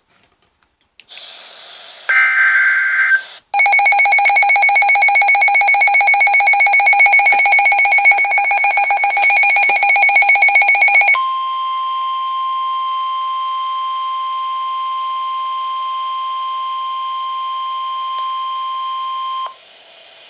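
Emergency weather-alert tones over a radio broadcast: a short data-like burst, then a loud, harsh, buzzing alert tone for about eight seconds. It switches to a single steady high warning tone, the 1050 Hz weather-radio warning alarm, which cuts off sharply near the end, leaving faint static.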